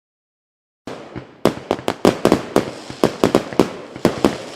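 Firecrackers going off: after about a second of silence, a quick, irregular string of a dozen or more sharp pops.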